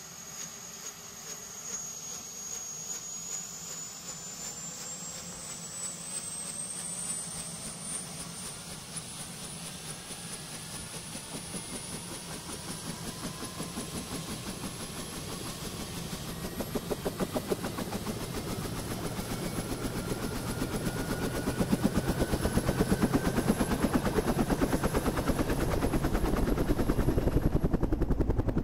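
Medical helicopter starting up: the turbine's high whine climbs in pitch, then the rotor's fast chop sets in about halfway through and grows steadily louder as the rotor comes up to speed.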